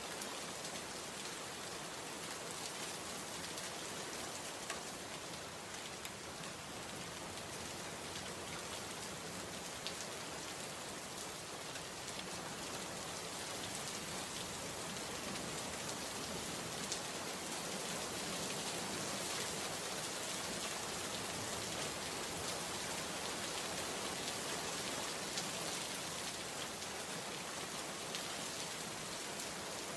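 Steady rain falling, with an occasional single drop landing a little louder.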